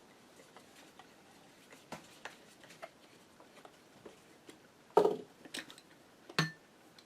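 Small metal clicks and taps from a Gosshveimashina sewing machine's hand-crank drive being taken apart by hand, with two louder knocks about five and six and a half seconds in.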